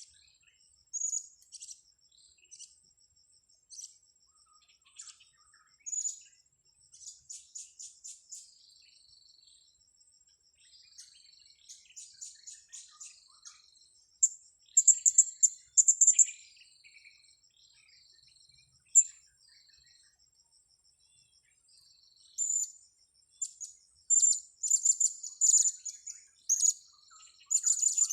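Blue-crowned hanging parrots (serindit) giving high, thin chirps and short falling notes in scattered bouts, busiest about halfway through and again near the end.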